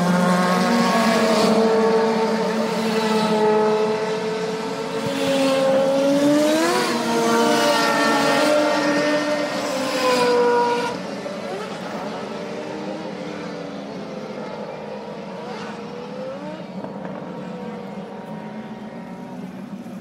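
Indy car engines at a race start, several cars at once, their pitches rising and falling as they accelerate and pass. About eleven seconds in the sound drops off and carries on fainter, slowly fading.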